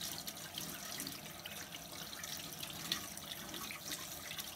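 Kitchen sink faucet running steadily, water splashing over hands being rinsed under it.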